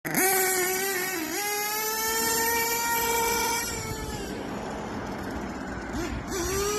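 Hobao Hyper MT Sport nitro RC truck's small glow-fuel engine running at high revs with a high-pitched whine. The pitch dips briefly about a second in, drops off about four seconds in, and revs back up near the end.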